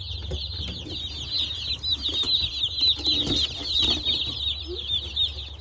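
A brood of newly hatched Cornish Cross meat chicks peeping continuously: many short, high, downward-sliding chirps overlapping in a steady chorus.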